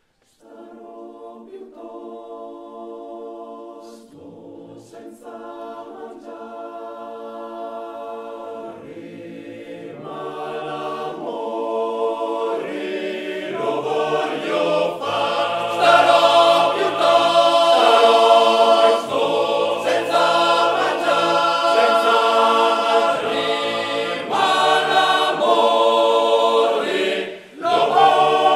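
Male-voice choir singing a cappella in close harmony, a Trentino mountain folk song. It starts softly after a brief silence and swells louder over the first quarter-minute, with a short break near the end before the next phrase.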